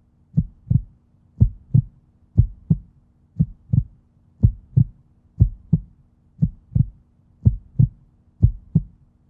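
Heartbeat sound effect: a low double thump, lub-dub, repeating evenly about once a second, over a faint steady hum.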